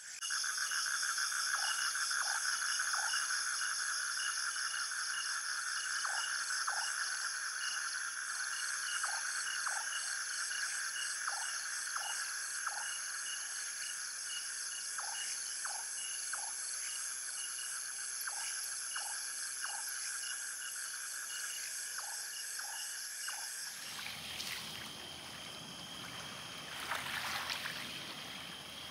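Tropical night chorus: steady shrill insect trilling, one part pulsing evenly, with short frog calls repeated every second or so. About 24 seconds in it cuts to a low wash of water at the shore.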